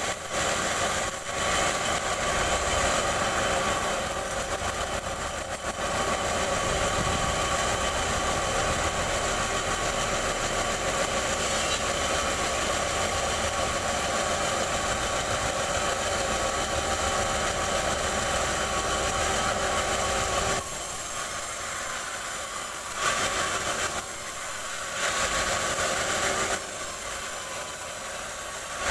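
Band sawmill running steadily between cuts, its motor and blade giving a constant mechanical drone with steady high tones. The sound drops to a lower level about two-thirds of the way through.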